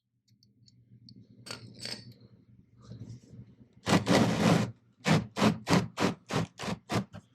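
Hand ratchet on a 6 mm socket backing out the oil drain bolt: one long run of ratcheting, then about ten quick back-and-forth strokes, roughly five a second.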